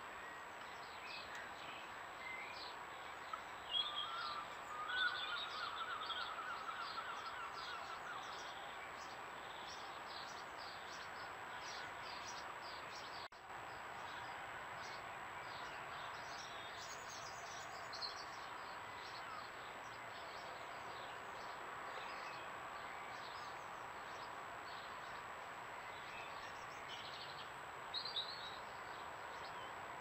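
Small songbirds chirping and singing, many short chirps and trills, with a louder stretch of trilling calls between about four and eight seconds in. A faint steady whine and hiss lies under it.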